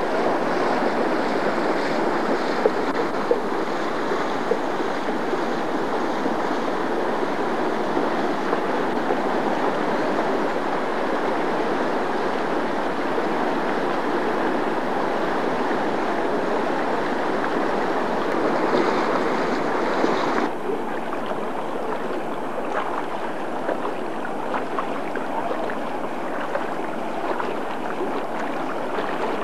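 Floodwater rushing over yards and a village street: a steady, loud rush of flowing water. About twenty seconds in it changes abruptly to a slightly quieter, duller rush.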